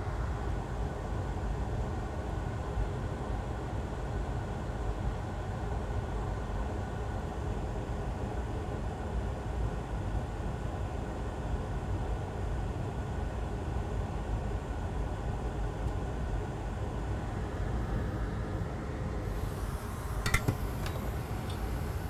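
Steady low rumble of a running fan, with a couple of sharp clicks near the end.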